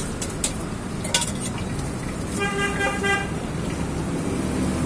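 Steady street traffic noise with a vehicle horn sounding once, a single toot of just under a second about two and a half seconds in. A few sharp clicks come in the first second and a half.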